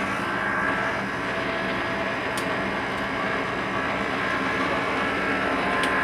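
Steady mechanical hum of a running motor-driven machine, holding a constant pitch, with a couple of faint clicks.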